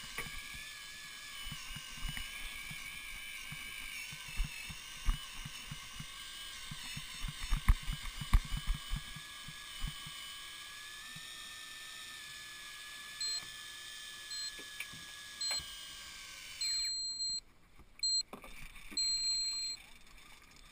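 Electric fishing reel's motor winding in line with a steady whine, cutting off about seventeen seconds in. Around the middle comes a quick run of dull knocks, and near the end the reel gives a series of short high beeps, then a few longer ones.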